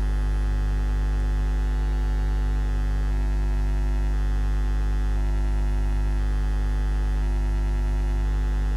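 Steady electrical mains hum on the commentary audio feed: a deep, unchanging buzz with a stack of overtones.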